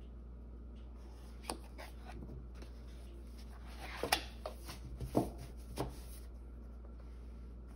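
A large paperback colouring book being handled, closed and turned over: a few soft rustles and taps of its pages and cover, the sharpest about four and five seconds in, over a faint steady low hum.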